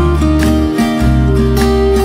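Background music in an instrumental passage of a pop song: strummed acoustic guitar over a low bass line.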